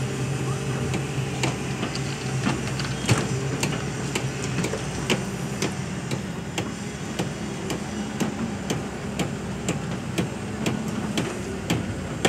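Heavy diesel engines of a Hyundai crawler excavator and a dump truck running steadily, under a run of sharp clicks and knocks that come about twice a second in the second half.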